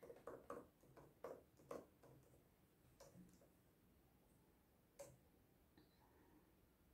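Faint taps of a MacBook laptop keyboard as a password is typed: about a dozen quick key presses in the first three and a half seconds, then one last tap about five seconds in.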